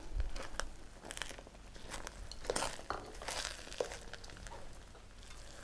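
Wooden spatula stirring and scraping sticky rice and grated coconut in a stainless steel wok: faint, irregular scrapes and light knocks.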